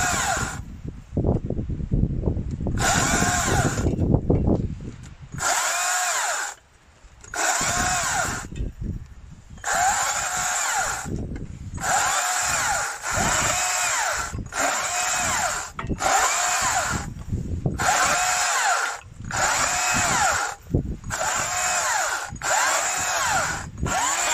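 Stihl MSA 200 C battery chainsaw run in about a dozen short bursts, cutting branches into firewood. Its electric motor's whine rises and falls in pitch within each burst as the chain bites into the wood.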